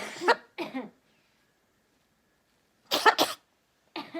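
Blue-and-gold macaw mimicking a human cough: a run of short coughs at the start, then a pair about three seconds in and another beginning near the end.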